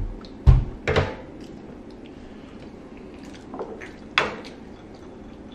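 Tongs and food clattering on an electric griddle and a small dipping bowl: two heavy knocks about half a second and a second in, then a softer knock and a sharp click around four seconds in as a rice cake is dipped into the bowl.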